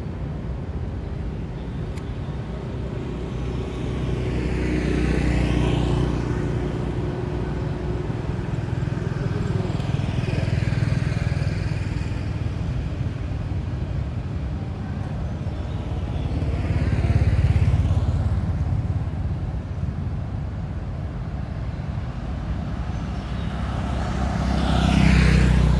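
Road traffic: motor vehicles pass one after another, about four of them, each swelling and fading over a steady low engine rumble. The loudest pass comes near the end.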